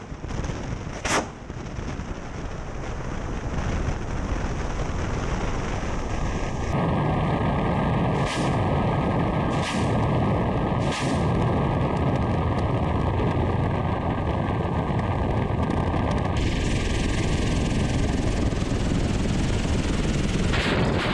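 Russian attack helicopter in flight, heard from a fuselage-mounted camera: steady rotor and engine noise with wind rush, broken by sharp weapon blasts as it fires on targets. One comes at the start and another about a second in; the noise then grows louder and three more blasts come about a second and a half apart, with another just before the end.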